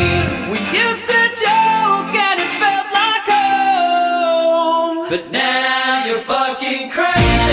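Background pop song with a sung vocal melody; the drums and bass drop out about half a second in, leaving voice and light instruments, and come back in near the end.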